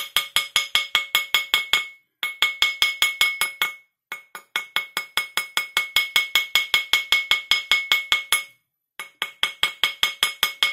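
Rapid light taps of a small wooden mallet on a ring fitted over a steel ring mandrel, about six a second, each with a short metallic ring, broken by three short pauses. It is the sound of truing a bent ring shank round on the mandrel.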